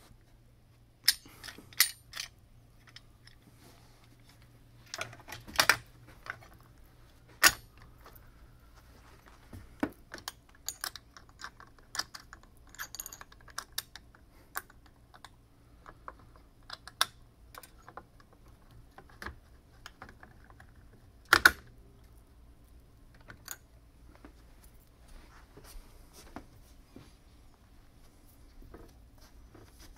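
Irregular clicks and knocks of metal panel clamps being handled, fitted onto a cubicle panel's top edge and tightened with an Allen wrench. A few sharper knocks stand out, the loudest about two-thirds of the way through.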